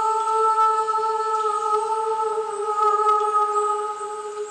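A woman's voice holding one long, steady hummed note, fading away near the end.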